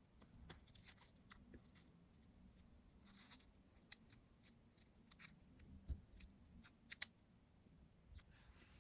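Faint handling of a LEGO minifigure blind bag and its small plastic parts: brief crinkles of the plastic packet and scattered small clicks, the two sharpest about six and seven seconds in.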